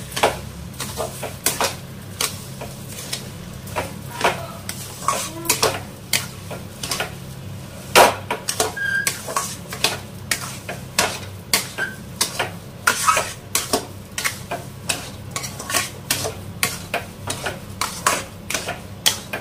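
Flat metal spatula scraping and clinking against a steel kadhai as sugar is stirred into thick homemade mawa (khoa). Repeated strokes, roughly two a second, with one sharper clank about eight seconds in.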